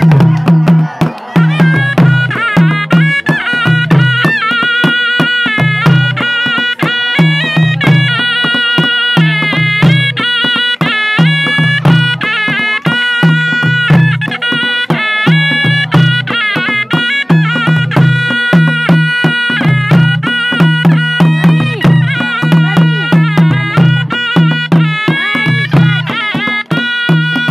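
Nepali folk music: a wavering, reedy melody over a steady beat, with a large skin drum struck with two sticks.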